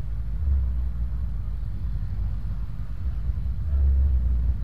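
Low rumble of idling motorbike and car engines in stopped traffic, swelling louder twice, about half a second in and near the end.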